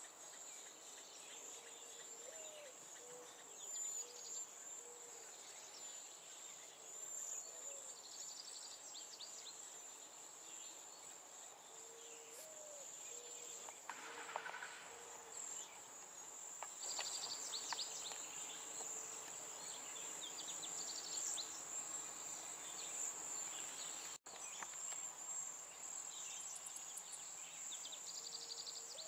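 Outdoor insect chorus, a steady high-pitched trill of crickets or similar insects, with scattered short bird chirps and repeated short low notes over it.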